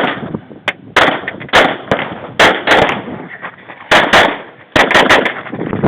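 A string of about nine pistol shots from a Glock 22 in .40 S&W, fired in quick pairs with short pauses between them as the shooter moves from target to target in an IDPA stage.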